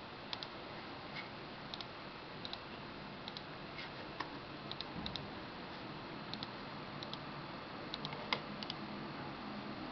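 Computer mouse buttons clicking, sparse light clicks about once a second, many in quick pairs like double-clicks, over a faint steady hum.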